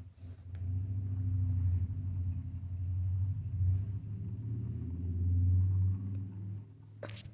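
A low rumble that swells and sags for about six seconds, then fades, followed by a short sharp click near the end.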